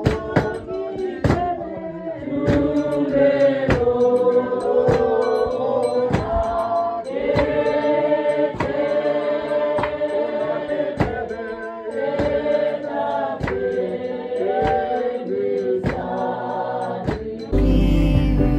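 Music with a group of voices singing over a steady beat; near the end it switches to a louder, sustained deep passage.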